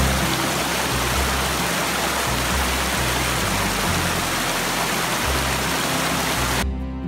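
Small forest creek rushing over rocks: a steady hiss of flowing water that cuts off abruptly near the end, with faint low sustained tones beneath it.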